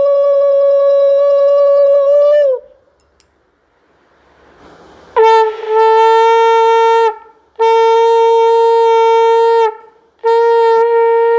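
Conch shell (shankha) blown in long, steady, single-pitched blasts: one held note ends about two and a half seconds in, then after a pause come three more blasts of about two seconds each. The blowing marks the evening lamp-lighting (sandhya) that closes the Lakshmi puja.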